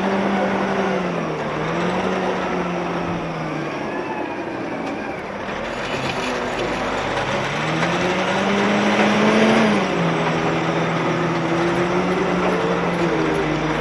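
Caterpillar 988A wheel loader's diesel engine working, its pitch rising and falling as the revs change: it climbs over several seconds, then drops suddenly about ten seconds in.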